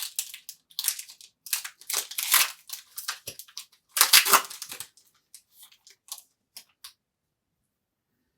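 Foil trading-card pack wrapper being crinkled and torn open, in irregular crackling bursts with the loudest tear about four seconds in, tapering to a few light rustles and clicks.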